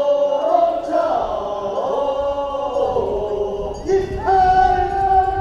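Men's voices singing a Korean funeral bier-carrying song (sangyeo-sori) in chorus, drawn-out notes that slide between pitches, with a new, higher held note about four seconds in.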